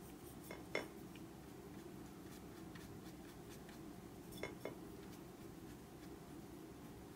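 Paintbrush clinking against a ceramic plate of paint: a pair of light clinks about half a second in and another pair about four and a half seconds in, as the brush is loaded with egg tempera.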